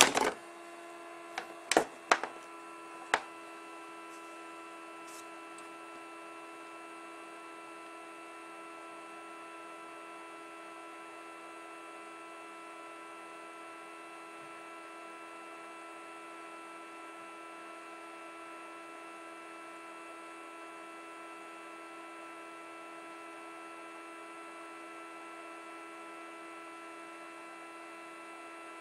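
A steady electrical hum made of several fixed pitches, with a few sharp clicks in the first three seconds.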